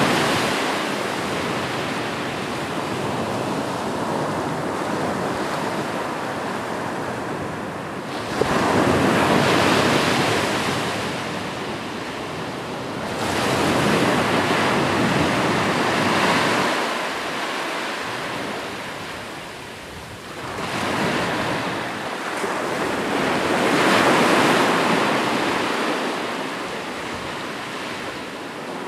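Ocean surf: waves breaking and washing in. The rushing noise swells with each new wave, about every three to five seconds, then fades back.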